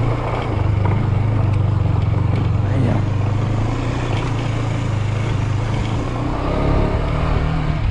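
Motorcycle engine running at a steady pace as the bike is ridden along a dirt road.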